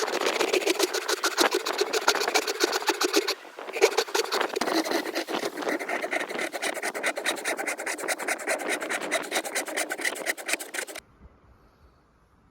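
A Top-Flite golf ball being cut: a blade rasps through it in rapid, even strokes, with a short break about three and a half seconds in. The cutting stops about eleven seconds in.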